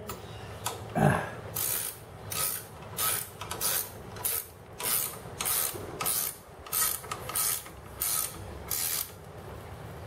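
Ratchet wrench turning the bolts on a disc brake caliper: a steady run of short ratcheting strokes, about two a second.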